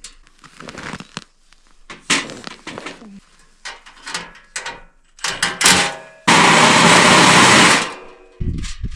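Scattered knocks and clatter of metal parts and tools being handled. Then a power tool runs loudly and steadily for about a second and a half, starting and stopping abruptly.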